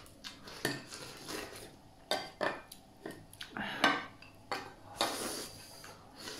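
Chopsticks clicking and scraping against a ceramic bowl as rice is shovelled from the rim into the mouth, in irregular strokes.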